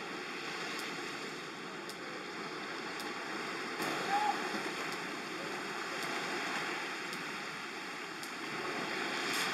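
Small waves washing onto a sandy beach and swirling around boulders: a steady wash of surf that swells slightly a few times.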